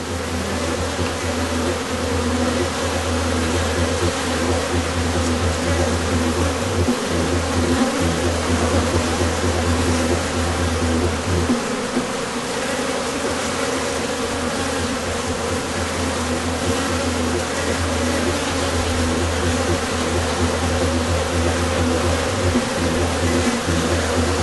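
Yellowjackets buzzing in a dense, steady drone.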